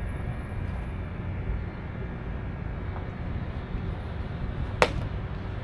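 Steady outdoor background noise with one sharp crack near the end.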